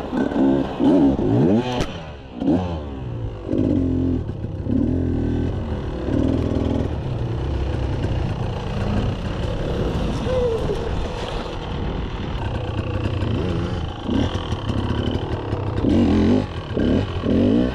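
Enduro dirt bike engine revving in repeated throttle bursts, its pitch rising and falling as the rider works the throttle over rough ground, with the loudest bursts at the start, from about three to seven seconds in, and again near the end.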